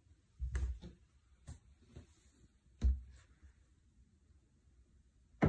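Kitchen cabinet doors being shut and opened by hand: a few soft thumps and clicks, the two heaviest about half a second and three seconds in, then a sharper knock right at the end.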